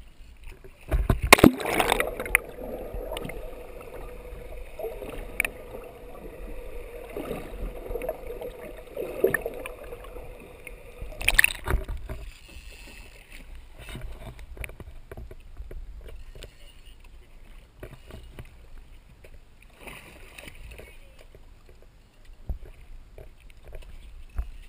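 Choppy sea water splashing and sloshing against a boat's hull right at the camera, with loud splashes about a second in and again near the middle. A steady hum runs between the two splashes.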